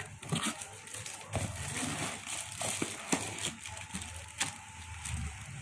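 Crinkling of a clear plastic bag and rustling cardboard as a plastic-wrapped item is pulled out of an opened cardboard box, with many small irregular clicks and crackles.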